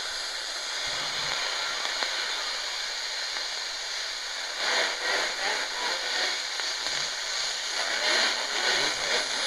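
Static hiss from the Tecsun GR-138 portable radio's speaker on the AM medium wave band. About halfway in, the noise grows louder and more uneven as a faint station begins to break through.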